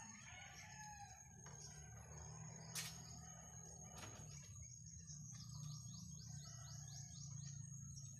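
A rooster crowing faintly in the first second or so. A single sharp click comes about three seconds in, and later a run of quick, high, descending chirps at about four a second.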